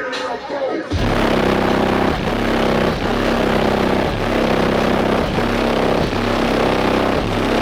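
Bass-heavy music played at extreme volume through four Sundown ZV3 15-inch car subwoofers, recorded as a loud, overloaded, distorted rumble. It kicks in suddenly about a second in, with a beat roughly once a second.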